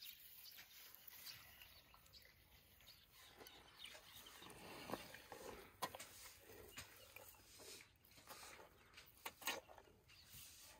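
Faint rustling and crackling of grass as a young African elephant calf pulls it with her trunk and chews, with a few sharper snaps about halfway through and near the end.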